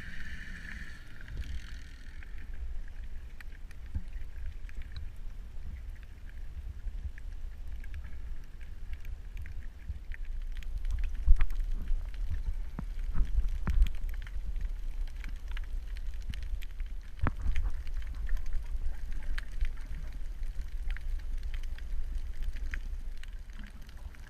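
Underwater ambience recorded on a dive: a low steady rumble with scattered clicks and crackles, a few louder bursts among them. A faint high tone fades out about a second in.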